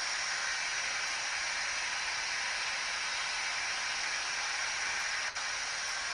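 Steady, loud hiss of static with no other sound in it, dipping for an instant about five seconds in.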